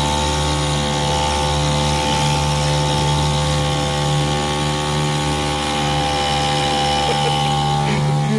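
Mercury 3.9 hp two-stroke outboard motor running steadily under way, a constant engine drone, with water splashing along the jon boat's hull.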